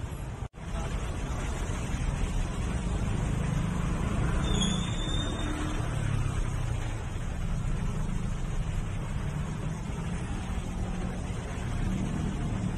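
Steady low rumble of wind buffeting the microphone, with a momentary dropout about half a second in.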